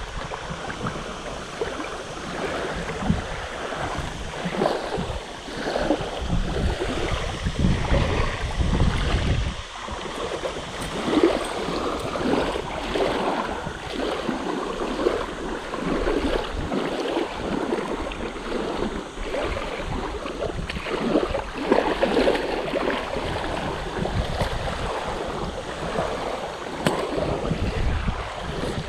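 Small waves lapping and splashing against a muddy reservoir bank in an irregular wash. Wind buffets the microphone with a low rumble for about the first nine seconds, then drops away.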